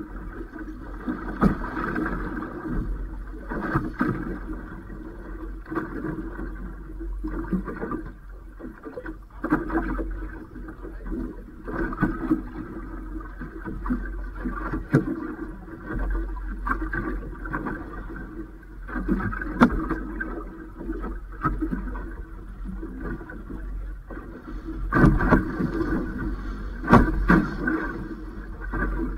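Water slapping and lapping against the hull of a Robalo 24 boat sitting at rest on choppy open water. Irregular knocks and splashes sound over a steady low hum.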